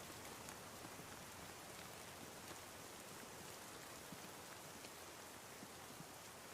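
Steady, faint rain falling, with scattered small drop ticks.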